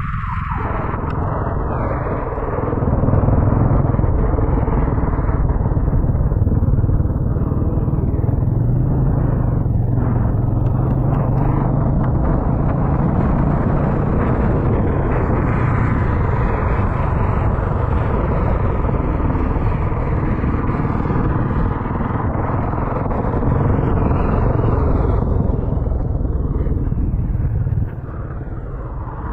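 Motorcycle cruising along an open road, heard from the rider's position: its engine runs steadily under a dense rush of wind and road noise. The sound steps up a little about three seconds in and drops slightly near the end.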